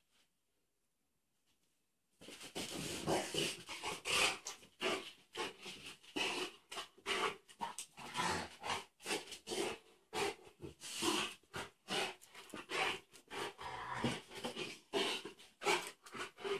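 Rottweiler breathing hard in rapid, noisy huffs while playing roughly with a rubber ring chew toy, starting about two seconds in after a short silence.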